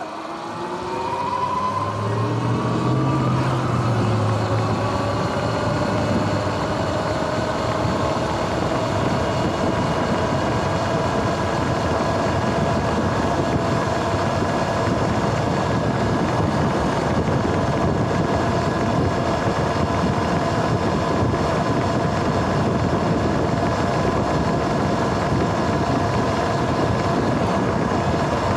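Sur-Ron X electric dirt bike's motor and drivetrain whining as it pulls away, the pitch rising over the first few seconds, then holding a steady whine at cruising speed over a rushing road and wind noise. The bike is freshly tuned and cleaned.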